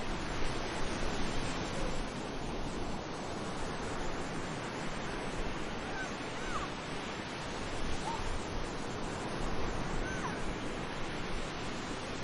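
Sea surf washing steadily onto a beach. A few faint, short bird calls come in about halfway through and again near the end.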